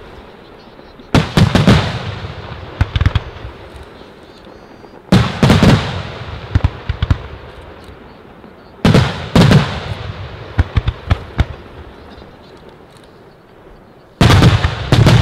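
Aerial firework shells bursting in four volleys about four seconds apart. Each volley opens with loud reports, then a string of sharp cracks, then fades away.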